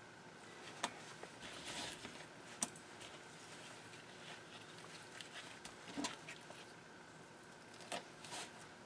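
Faint handling noise of rubber-gloved hands moving partly frozen squid pieces on a plastic cutting board, with a few light taps, the last near the end as a knife tip cuts down against the board.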